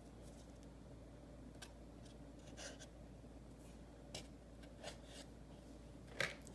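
Faint, scattered clicks and rustles of hands handling pumpkin seeds and pressing them into potting soil in eggshells.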